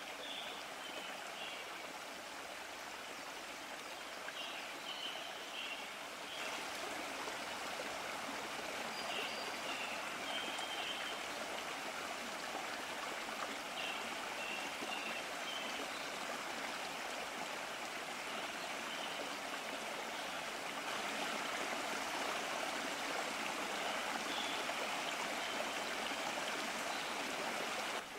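Steady rushing of a flowing stream, with short high chirps at intervals.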